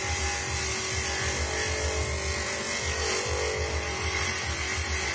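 Electric coconut grater running steadily, its motor-driven toothed grating head shredding coconut flesh pressed against it. A steady whirring hum with a rough pulsing rumble underneath, sounding like an electric drill.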